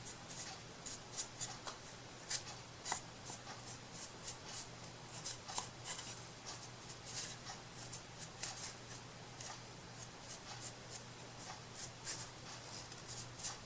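Irregular light scratching and rubbing strokes from hand craft work on a tabletop, over a steady low hum.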